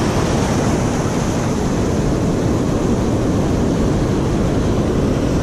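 Steady rush of surf breaking and washing through shallow water, with wind rumbling on the microphone.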